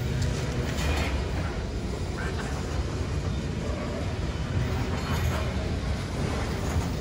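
Freight train of covered hopper cars rolling through a grade crossing: a steady rumble and rattle of steel wheels on the rails.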